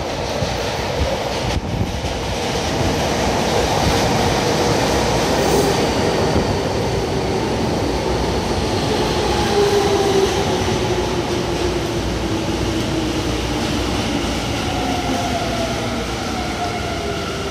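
Tobu 9000-series electric train heard from inside the car while running underground: steady wheel and track rumble with motor whine. In the second half the whine falls in pitch as the train slows.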